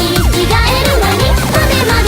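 Background music with an electronic dance beat and a bass line.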